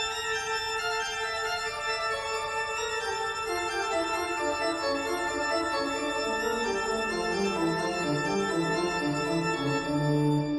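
Background keyboard music with held, organ-like chords. Through the second half a line of notes steps steadily down in pitch.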